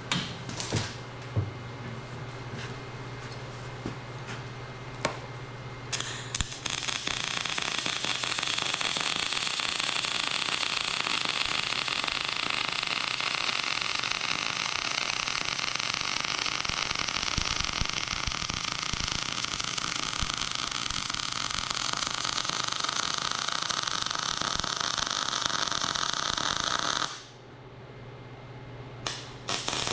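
Electric arc welding on the plow's steel: a steady crackling sizzle starts about six seconds in, stops briefly near the end, then starts again, with a low welder hum and a few clicks before it.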